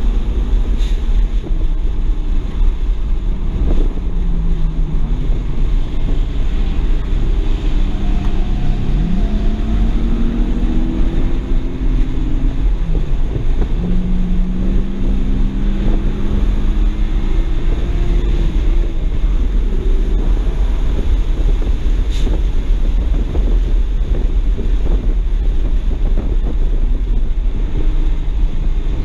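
BMW 335i's twin-turbo straight-six engine pulling at track speed, its note rising and falling several times with throttle and gear changes, heard from inside the cabin over heavy low wind and road rumble.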